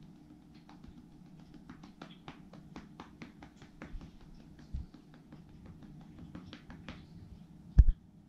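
A hand patting a cat's back and rump in quick light taps, about three a second. Near the end there is a single loud dull thump.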